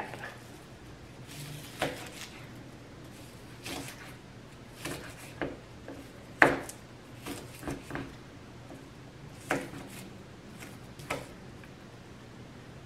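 Knife chopping an onion on a cutting board: irregular sharp knocks about once a second, the loudest about six and a half seconds in.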